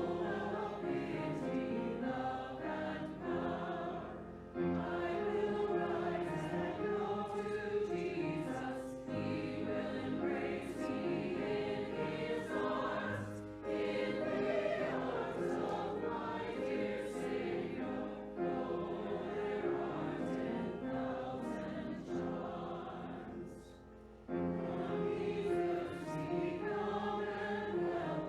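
Church congregation singing a hymn together, phrase by phrase, with short breaks between lines and a longer one about 24 seconds in.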